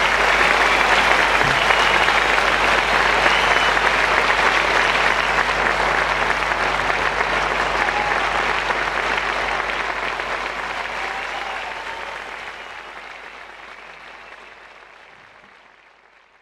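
Large theatre audience applauding steadily. The applause fades out over the last several seconds.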